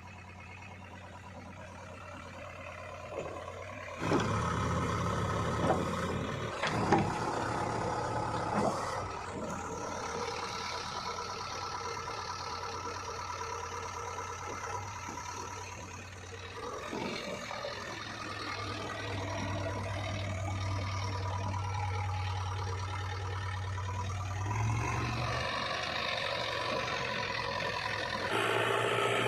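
Diesel engine of a JCB 3DX backhoe loader running as it digs and loads mud, getting louder about four seconds in, with a few sharp knocks and clanks over the next several seconds. The engine note shifts twice later on as the load changes.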